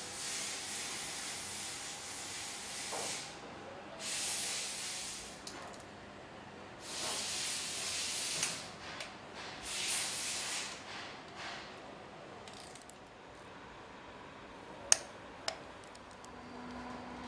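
Ratchet wrench being spun on engine bolts in four rasping bursts, each about a second and a half long, followed near the end by two sharp clicks of the tool on the metal.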